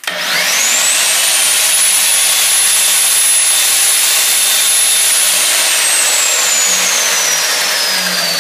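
2100 W angle grinder with a cut-off disc switched on and spinning up free with a rising whine, running steadily with no load, then switched off about five seconds in and winding down with a slowly falling whine. It is powered through an inverter from a 12 V LiFePO4 battery, drawing around 80 amps.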